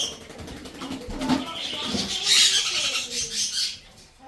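Baby blue-and-gold macaw giving one long, harsh squawk that starts about two seconds in and lasts about a second and a half.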